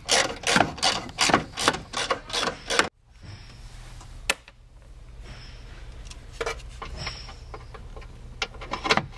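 A quarter-inch drive ratchet with a swivel-head socket clicking at about four clicks a second as it backs out an 8 mm bolt, then stopping about three seconds in. After that there is a low steady hum with a few scattered clicks.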